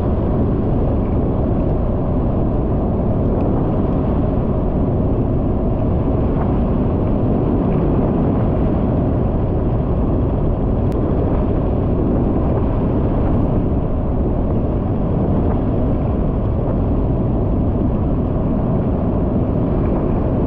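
Steady rumble of wind on the microphone mixed with engine and tyre noise from a vehicle travelling at about 50 km/h on a paved road.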